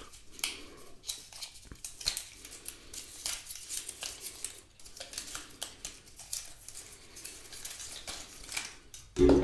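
White paper packaging rustling and crackling with many small irregular clicks as hands unwind it from a coiled power cable. A loud music chord starts suddenly near the end.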